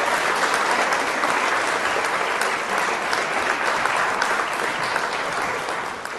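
Audience applauding, steady clapping that fades away near the end.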